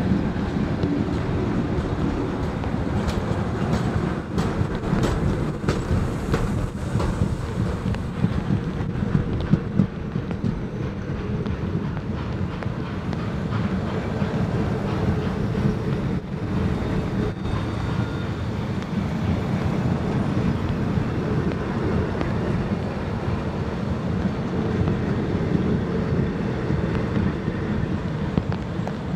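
Passenger carriages rolling past on the rails: a steady rumble from the wheels and bogies, with scattered sharp clicks.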